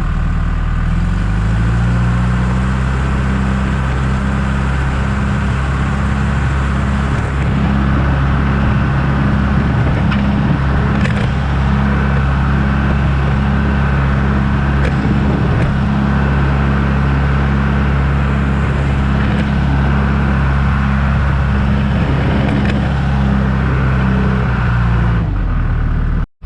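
John Deere 310G backhoe's diesel engine running, picking up revs in the first couple of seconds, holding a steady speed, then easing off near the end before the sound cuts off abruptly.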